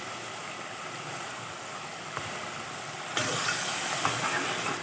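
Pot of beef liver curry simmering, a steady sizzling hiss from the bubbling gravy. About three seconds in it gets louder and brighter, with a few faint clicks.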